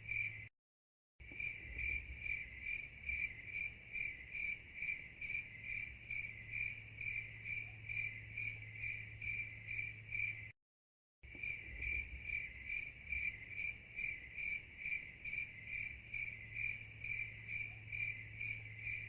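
A cricket chirping in a steady, even pulse, about three chirps a second. The chirping is broken by two brief dead-silent gaps, one about half a second in and one about ten seconds in.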